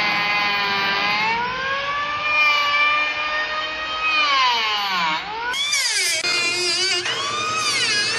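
Motor of a woodworking power tool running under load, its whine sliding down as it bogs and climbing back again. About two-thirds through, the sound switches abruptly to a similar whine that swings up and down faster.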